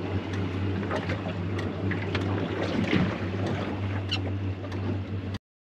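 A small boat lying in a tideway, with water slapping and lapping at the hull and wind over it, a steady low hum underneath and a few light knocks. The sound cuts off abruptly near the end.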